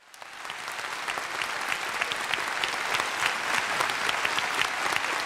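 Audience applauding, many hands clapping, fading in over about the first second and then holding steady.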